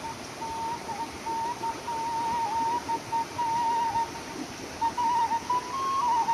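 Background music: a single flute-like melody line, mostly holding one note with small turns and short breaks, over the steady rush of river rapids.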